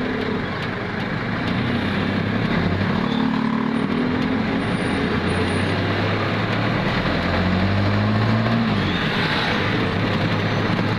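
Engine and road noise of a moving jeep, heard on board. The engine note climbs as it speeds up and falls away about eight and a half seconds in.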